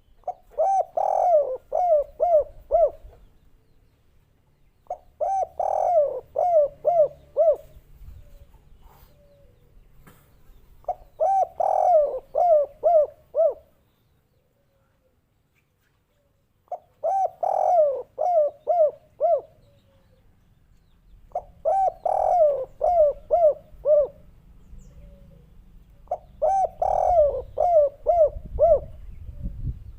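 Spotted dove (derkuku, tekukur) cooing in the 'kuk 3' song style: six phrases a few seconds apart, each a rhythmic run of about five short, falling coos.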